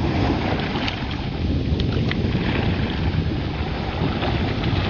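Wind buffeting the microphone in a steady low rumble, over the hiss of water rushing past the hull of a sailboat under way, with a few light splashes about one and two seconds in.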